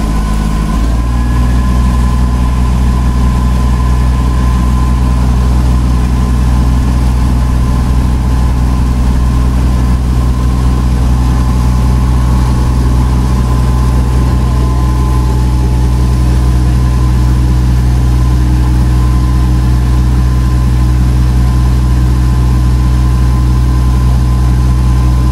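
Tour boat's engine running steadily under way, heard from on board as a loud low drone; its note changes about a second in, then holds steady.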